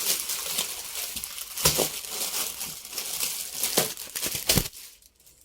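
Packaging crinkling and rustling as it is handled, with a few sharp knocks.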